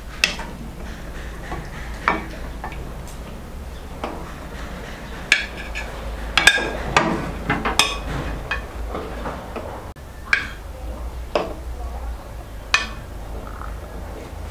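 A metal ladle clinking and knocking against a nonstick frying pan and a porcelain plate as braised chicken pieces are served out. There are about a dozen sharp clinks, thickest in the middle, over a steady low hum.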